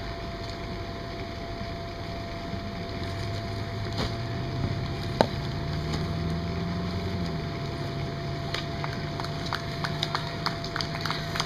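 Outdoor background noise with a low hum that rises and falls in the middle, one sharp click about halfway, and, in the last few seconds, a run of sharp regular taps about two to three a second.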